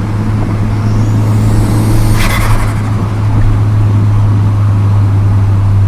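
VW Golf GTI Mk4's 1.8 20-valve turbo four-cylinder engine running steadily at a constant engine speed while driving. A brief high rising whistle comes in about two seconds in.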